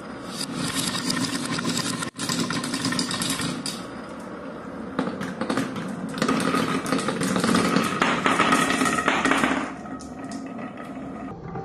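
Many glass marbles rolling and clattering on a wooden marble-run track: a continuous rolling rumble with dense clicks as they knock together and against the wood. It grows louder in the middle and eases off near the end.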